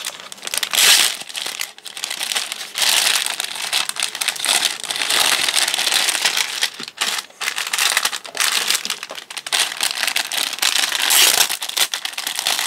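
Thin clear plastic packaging bags crinkling continuously as hands handle knit beanies in them, loudest about a second in and again near the end.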